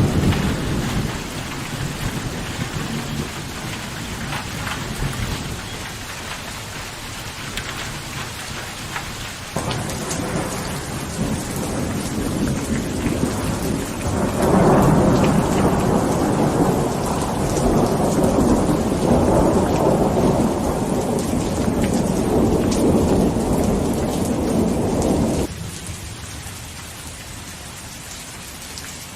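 Steady rain with rolling thunder. A rumble dies away over the first few seconds, then a louder, longer roll builds about halfway through and cuts off abruptly near the end, leaving only the rain.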